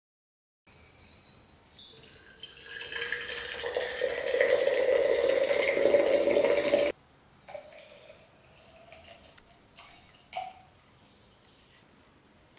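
Water poured in a thin stream into a glass jar of coffee grounds, the splashing growing louder and its tone rising slightly as the jar fills, then stopping abruptly. A few light knocks follow.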